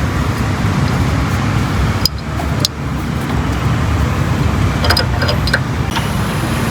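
Steady road traffic noise, with a few short metallic clicks about two seconds in and a quick cluster of them around five seconds in.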